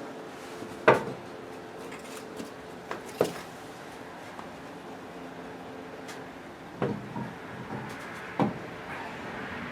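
Four sharp metallic knocks of a wrench and socket being fitted and worked on brake caliper bolts, the first the loudest, over a faint steady hum.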